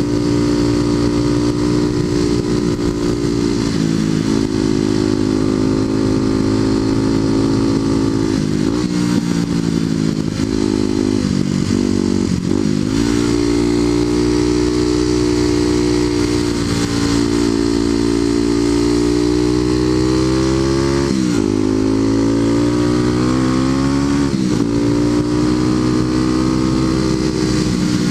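Kawasaki KLX250SF's single-cylinder four-stroke engine running through a Muzzy aftermarket exhaust while riding. The pitch dips briefly a few times in the first half, then climbs steadily under acceleration, with two sharp drops at upshifts in the last third.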